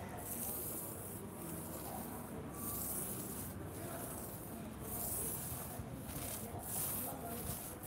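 Paint roller rolling over a rough exterior wall, a hiss with each stroke, about one a second.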